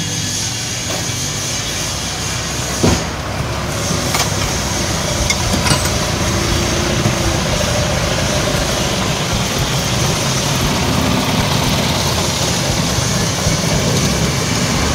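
Steady, loud machinery noise with a sharp metallic clink about three seconds in and a few fainter taps after it.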